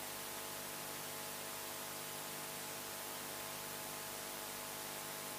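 Steady faint hiss with a constant electrical hum: the background noise of a live broadcast audio feed with no commentary on it.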